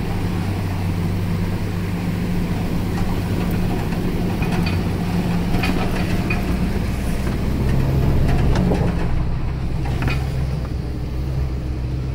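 Pickup truck engine running at low speed while the truck drives through shallow floodwater, its note stepping down about halfway through, with a few short clicks and knocks.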